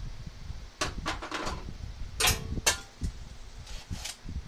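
Handling noise of tools and hardware: a run of sharp clicks and clinks, the loudest two about two and a half seconds in with a brief metallic ring, over a low rumble.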